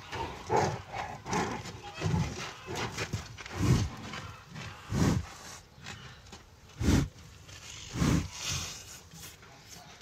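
White rhinoceros breathing close to the microphone: a series of short, low exhalations from its nostrils, about seven in ten seconds at an uneven pace, fading toward the end.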